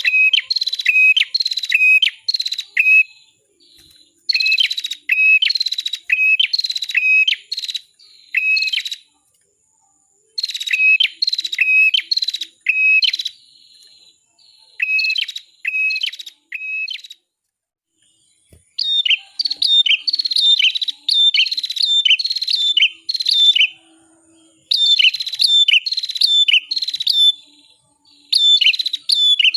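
Prinia (the red-headed prenjak or ciblek of Indonesian bird-keeping) singing: loud phrases of quick, sharp notes, each note dropping in pitch, repeated two or three times a second. The phrases run for a few seconds each, with short pauses between them.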